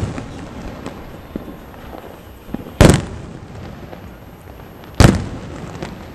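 Aerial firework shells bursting overhead. The last of one report dies away at the start, then two sharp bangs about three and five seconds in, each with a rolling echo, and faint crackling between them.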